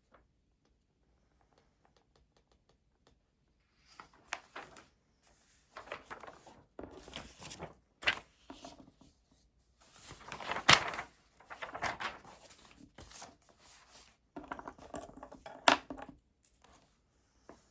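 Rustling and handling noises at a study desk, like papers and books being moved, with several sharp knocks of things set down, the loudest about halfway through. A few faint ticks come before the rustling begins.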